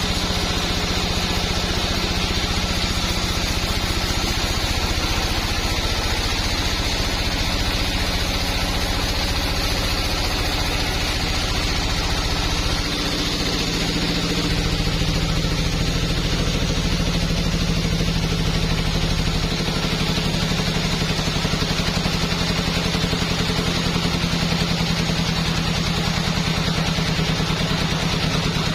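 An engine running steadily under a constant load, its low hum shifting in tone about halfway through.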